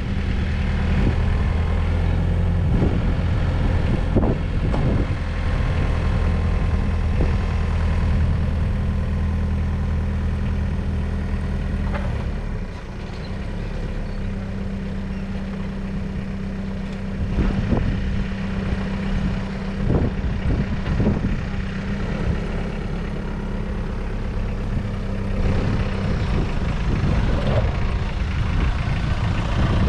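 Hyundai 30DF-7 forklift's four-cylinder diesel engine running steadily while the truck drives and works its mast, easing off and going quieter about twelve seconds in, then picking up again. A few short clunks come around the middle.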